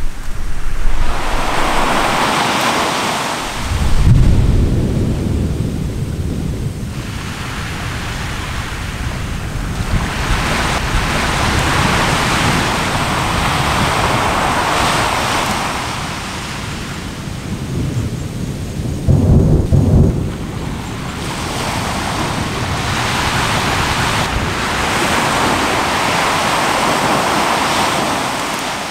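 Deep rumbling booms of Anak Krakatau's explosive eruption, one about four seconds in and another about twenty seconds in, over surf washing ashore in slow, rushing swells.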